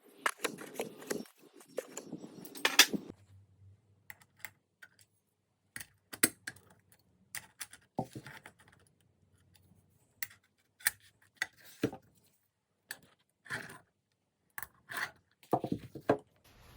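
Irregular metallic clicks and clinks of hand tools and small parts being handled, denser and clattering for the first few seconds, then single clicks spaced a second or so apart.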